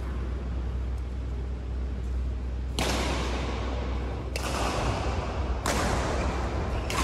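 Badminton rackets striking a shuttlecock in a rally, four sharp hits about 1.3 seconds apart starting about three seconds in, each ringing out in the hall's echo. A steady low hum lies underneath.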